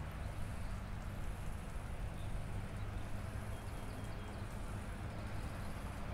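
Outdoor spring park ambience: a steady low rumble under a faint high hiss, with a few faint short chirps.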